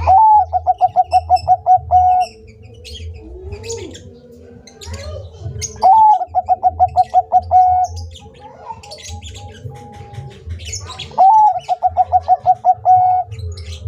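Perkutut bangkok (show-bred zebra dove) singing its staccato cooing song three times. Each phrase lasts about two seconds: a rising opening note, then a quick run of about a dozen short coos.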